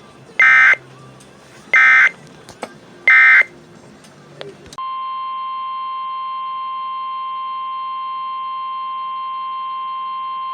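NOAA Weather Radio Emergency Alert System signalling: three short bursts of SAME digital data tones, about a second and a half apart. Then, about five seconds in, the steady 1050 Hz warning alarm tone that comes before a new alert begins and holds.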